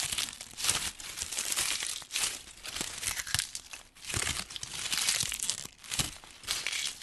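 Dry fall leaves crunching in a series of crisp crunches, about one a second.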